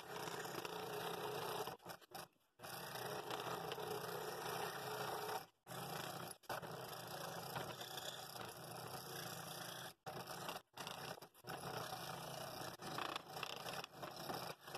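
Scroll saw running and cutting internal cuts in half-inch oak with a number three blade, a steady buzz. It drops out briefly several times.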